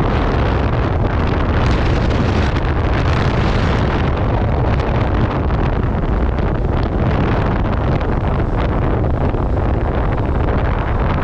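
Wind rushing and buffeting over a helmet-mounted camera's microphone on a motorcycle at road speed, with the motorcycle running underneath; steady and loud throughout.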